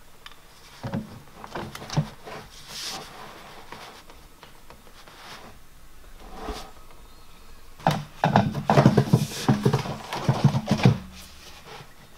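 PVC pipe being glued: a cement dauber scrubbed on the pipe and fitting with a few light knocks, then the white DWV elbow handled and worked onto the pipe end, giving a quick run of plastic knocks and rubbing from about eight to eleven seconds in.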